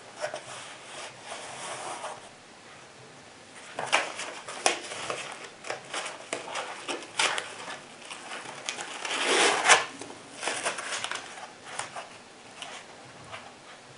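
Handling noise from an ankle holster being turned and folded in the hands: rustling of the padded wrap, clicks and taps from the plastic holster shell, and a louder, longer scraping rustle about nine seconds in.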